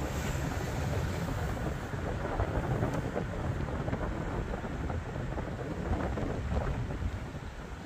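Steady rumble of a car moving slowly, with wind buffeting the microphone.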